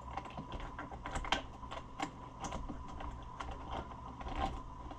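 Small metal bolts clicking and clinking as they are picked through by hand on a workbench, in quick irregular ticks.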